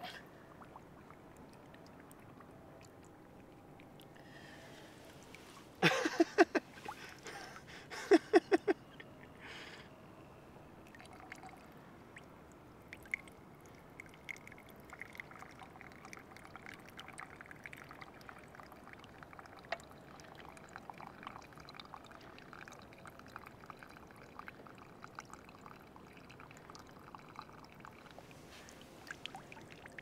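A drinks can is filled with lake water, gurgling loudly a few times about six and eight seconds in. Water is then poured from the can into a carved wooden cup in a faint, steady trickle lasting about a quarter of a minute. The pour is a leak test of the wooden cup.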